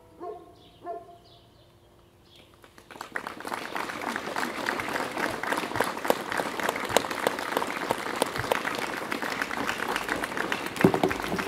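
Two last plucked notes of music fade in the first second, then after a brief hush an audience starts applauding about three seconds in and keeps clapping steadily.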